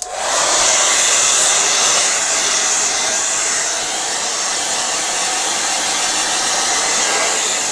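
Hand-held hair dryer switched on and running steadily, blown across a painting to dry the wet acrylic ink and pastel. It starts abruptly with a steady, even hiss.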